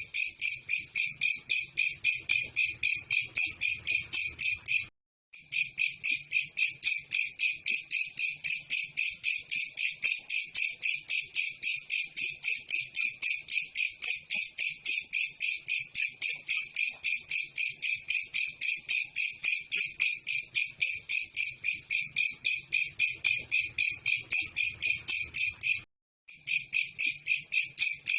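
Belalang kecek grasshopper calling: a loud, high-pitched, rapidly repeated chirp at about four pulses a second. It cuts out briefly twice, about five seconds in and near the end.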